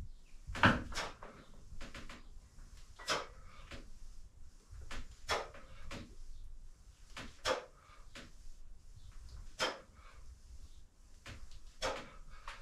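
Repeated clunks from strength-training equipment, about one every two seconds in time with the repetitions of a set.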